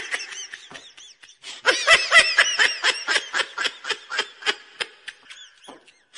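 Women laughing hard: a short burst at the start, then after a brief gap a long run of quick, high-pitched "ha-ha" pulses that tails off near the end.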